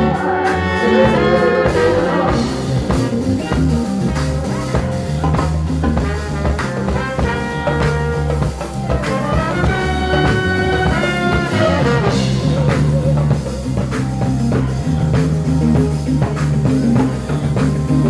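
Live band playing an instrumental passage: a horn section holding and moving through phrases over drums and a steady bass line.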